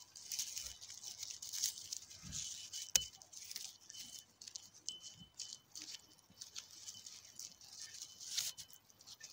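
Faint rustling and small clicks of a gift ribbon being tied into a bow around a glass jar of water, with one sharp tap about three seconds in.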